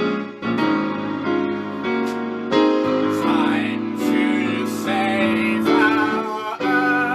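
Piano-led music playing, with several notes changing every fraction of a second.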